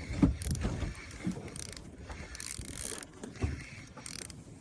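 Shimano Stella SW spinning reel being cranked to bring in a fish: a mechanical reel winding sound with scattered clicks.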